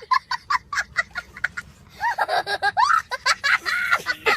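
A person giggling: a quick run of short laughing bursts, about six a second, then longer laughing with rising and falling pitch from about halfway through.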